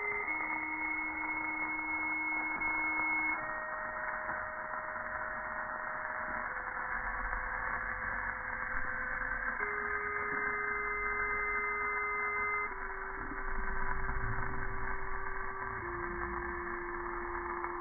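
Musical lotus-flower birthday candle: its electronic sound chip plays a slow run of single tones, each note held about three seconds before stepping to a new pitch. Under it runs a steady hiss from the candle's burning centre fountain flame.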